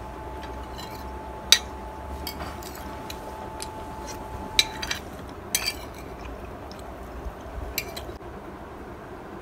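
Metal spoon and fork clinking against a ceramic plate while eating, a few sharp clinks with the loudest about a second and a half in.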